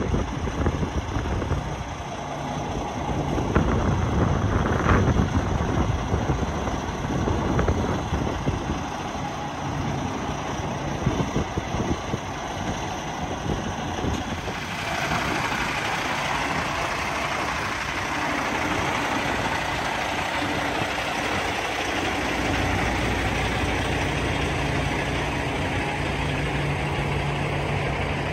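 Cummins X15 diesel engine of a Kenworth T680 semi-truck idling, a steady low hum that is clearest in the last few seconds. Wind buffets the microphone in the first half.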